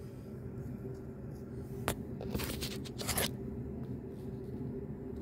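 Small handling noises on engine parts: one sharp click about two seconds in, then two short scraping rustles, over a steady background hum.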